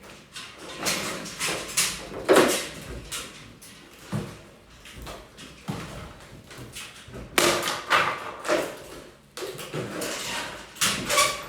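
Demolition work: irregular knocks, scrapes and clatters as building material is pried and knocked loose, with louder crashes about two seconds in and again near eight and eleven seconds in.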